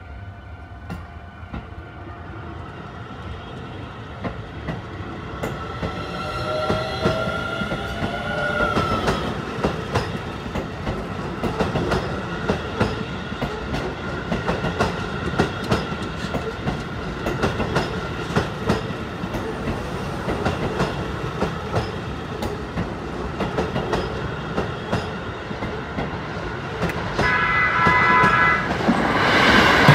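Keio Line electric commuter train running over the turnout and rail joints, with a steady clickety-clack from its wheels. A whine rises in pitch a few seconds in. Near the end a horn sounds for about two seconds as a Keio 9000 series train approaches.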